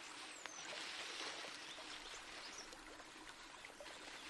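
Small bush stream flowing steadily: a soft, even rush of water. A faint, high, falling whistle sounds near the start.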